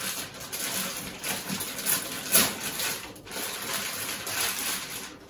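Plastic wrapping rustling and crinkling as a mixer grinder's motor unit is worked out of its bag, with a sharper crackle about two and a half seconds in.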